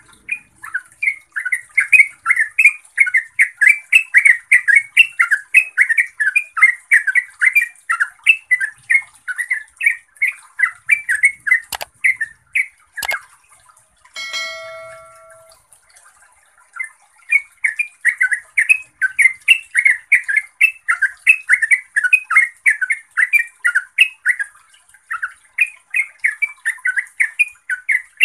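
Yellow-vented bulbul singing a fast run of loud, chattering notes, several a second. The run stops about halfway through and starts again a few seconds later. In the pause come two sharp clicks and a short chime.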